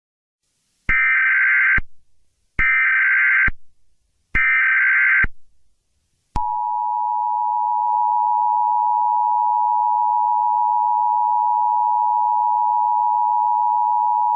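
Emergency Alert System broadcast tones: three identical short screeching data bursts of the SAME header, each just under a second long, then the steady two-tone EAS attention signal. The attention signal starts about six seconds in and holds steady.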